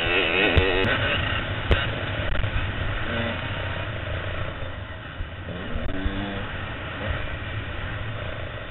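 Dirt bike engine revving up and down with the throttle as it is ridden over a motocross track, heard from a helmet-mounted camera, with a few sharp knocks in the first two seconds.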